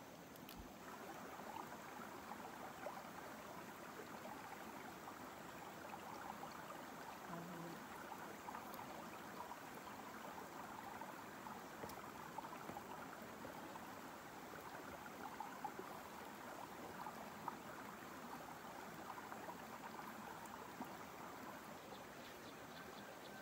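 Faint, steady rushing of a small stream, with a few light clicks over it.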